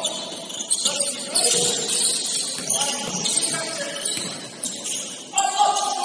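Basketball game on a gym court: sneakers squeaking on the floor in quick, high-pitched bursts, with a few sharp knocks.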